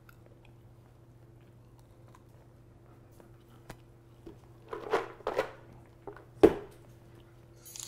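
Kitchen counter handling noises: a few light clicks and clattering knocks of utensils and containers, then one sharp knock near the end, over a faint steady hum.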